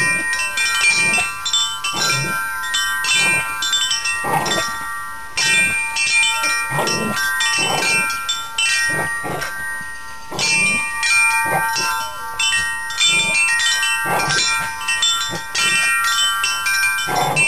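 Metal wind chimes struck over and over by a border collie, ringing on without a break, with a new hit about once a second.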